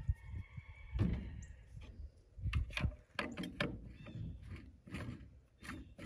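Plastic bottles and a pump sprayer being handled: a string of irregular clicks and knocks, several a second at times.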